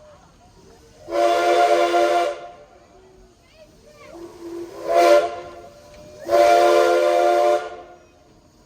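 Steam locomotive's whistle blowing three blasts, long, short, long, following one long blast just before; together the four blasts make the long-long-short-long signal for a grade crossing.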